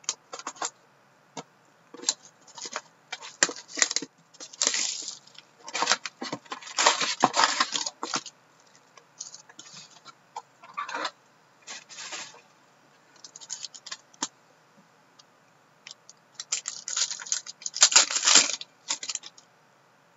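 Plastic shrink wrap and foil card-pack wrappers crinkling and tearing open as a box of hockey cards is unpacked, in irregular bursts of rustling. The loudest stretches come about six to eight seconds in and again around seventeen to eighteen seconds in, with cards being shuffled toward the end.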